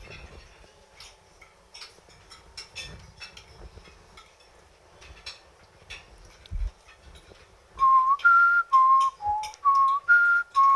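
Light clinks of cutlery on plates in a quiet room, then, about eight seconds in, a man whistling a simple tune in short held notes that step up and down.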